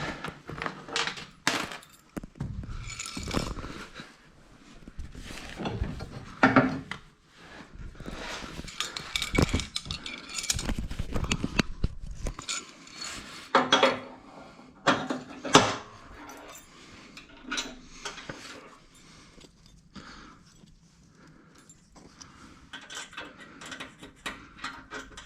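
Irregular metal clinking and clanking, with a few louder knocks: steel mower-deck linkage parts being handled and fitted as the deck's front rod is hooked up to a riding mower.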